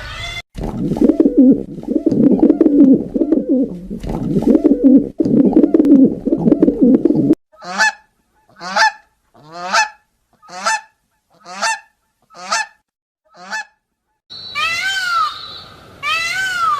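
A flock of geese honking and cackling together in a dense, continuous chorus. Then, as separate recordings, a bird gives seven short, evenly spaced calls, and near the end come a few louder calls that rise and fall in pitch.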